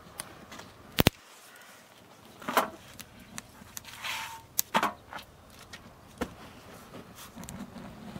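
Scattered sharp clicks and knocks with light rustling, a loud one about a second in and several more a second or two apart, as flatbreads are handled and turned on a hot metal griddle over a wood fire.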